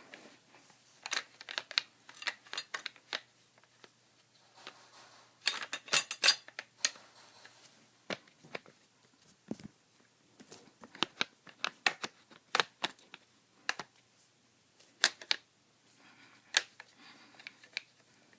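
Remington 870 pump shotgun parts being handled and fitted together during reassembly: an irregular run of sharp metal clicks and knocks, with a denser cluster a third of the way in.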